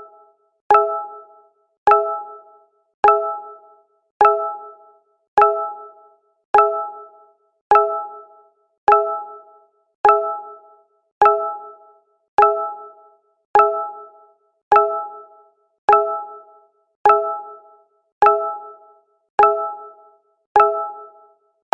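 Google Hangouts notification sound, a short ding of several tones at once that dies away quickly. It repeats back to back about once every 1.15 seconds.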